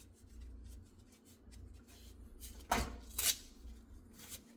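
Crown stapler firing twice, two sharp snaps about half a second apart, tacking metal flashing down onto a wooden hive lid.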